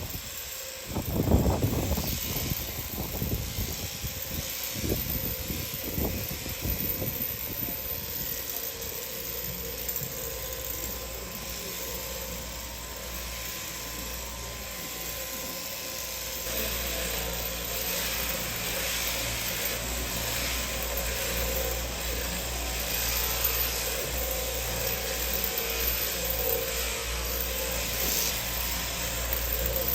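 Electric sheep-shearing handpiece running steadily while a lamb is shorn, with a few knocks in the first seconds.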